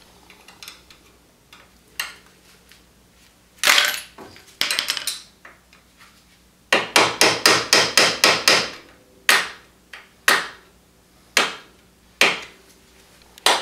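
Hammer blows driving a suspension A-arm bolt through its new bushings: a few single strikes, then a quick run of about nine blows, then single blows about a second apart.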